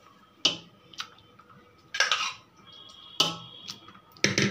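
A metal spoon clinking and knocking against aluminium cooking pots about five times as cooked keema is scooped and dropped onto rice, with a short scrape about two seconds in.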